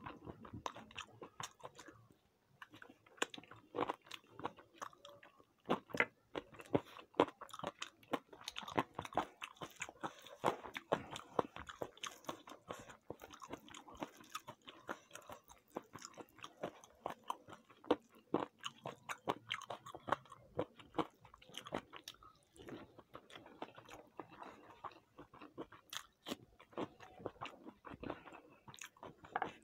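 A person chewing and biting food close to the microphone: a dense, irregular run of small clicks and crunches.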